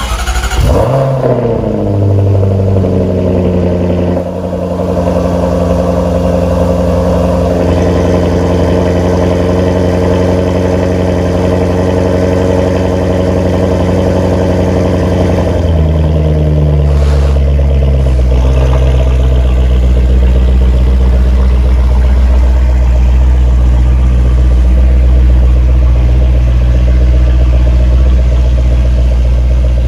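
2019 Jaguar XE SV Project 8's 5.0-litre supercharged V8 cold-starting through its quad exhaust. It catches with a quick rev flare and settles into a high cold-start idle. About 16 seconds in, the idle drops to a lower, steady idle.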